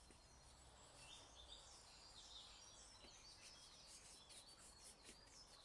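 Faint birdsong: several small birds chirping with quick, high, falling notes over a low background hum.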